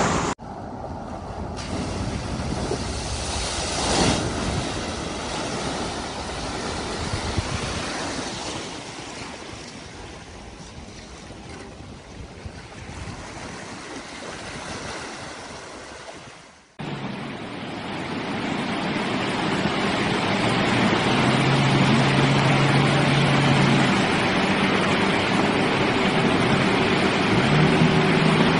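Vehicles wading through deep flood water: rushing, splashing water with wind noise. About two thirds of the way in, a sudden cut brings louder water noise and an engine running steadily.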